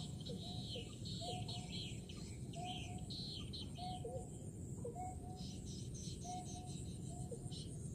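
Repeated calls of a white-breasted waterhen: a short two-part call, repeated evenly about once a second. Thin high chirps and a steady low rushing noise sit underneath.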